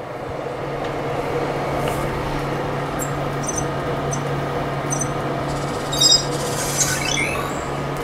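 Microwave oven running with a steady low hum and fan-like whoosh. From a few seconds in, the Emo robot inside makes short, very high electronic chirps, then a brighter burst and a quick falling trill of tones near the end.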